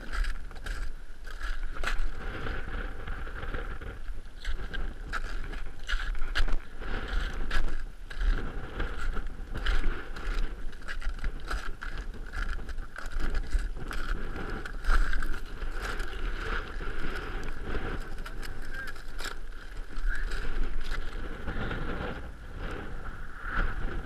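Strong wind buffeting the microphone in uneven gusts, with a constant low rumble, over the crunch of footsteps on packed snow.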